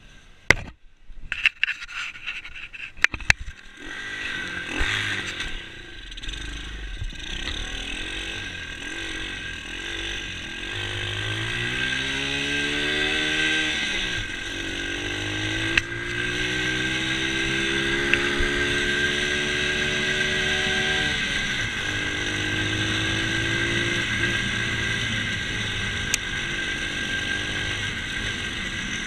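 Pit bike engine pulling as it is ridden, revving up through the gears: its pitch climbs, drops at a shift, climbs again, then settles to a steady cruise. A few sharp knocks come in the first few seconds.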